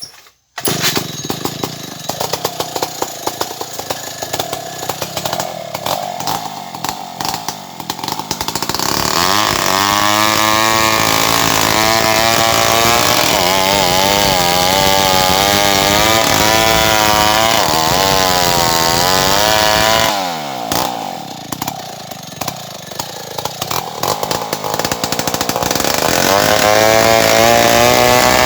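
Stihl 070 two-stroke chainsaw comes in suddenly about half a second in and idles raggedly. Around nine seconds in it goes to full throttle, its pitch rising and falling, then drops back to idle around twenty seconds. It is back at full throttle near the end.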